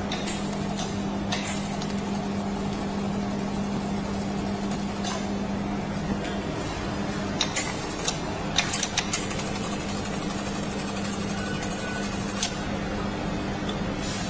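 Steady electrical machine hum, with spells of fast, high-pitched ticking and a few sharp clicks in the middle.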